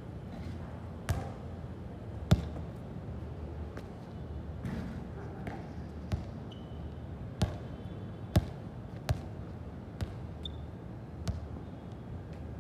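A series of about eight sharp thuds or knocks at uneven intervals, the loudest a couple of seconds in, over a steady low hum.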